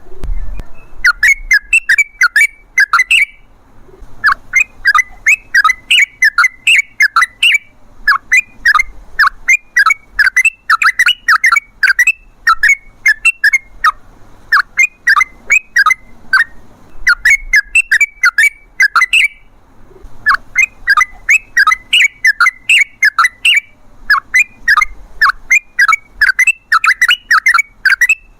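Yellow-vented bulbul (trucukan) singing its long 'ropel' song: fast runs of bubbling, chirping notes, each run lasting one to three seconds with brief pauses between, repeating without a break.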